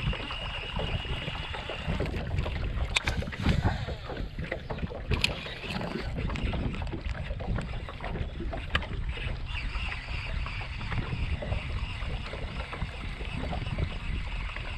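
Wind buffeting the microphone and water slapping against a small fishing boat's hull, with a few sharp clicks from the rod, reel or tackle.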